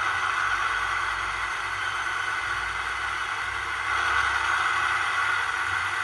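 Recorded SNCF BB 66000 diesel locomotive engine sound running steadily, played by a model locomotive's sound decoder through a small ESU SugarCube 15x11 speaker (6 mm thick), which carries mostly the upper-middle part of the engine sound. It gets a little louder about four seconds in.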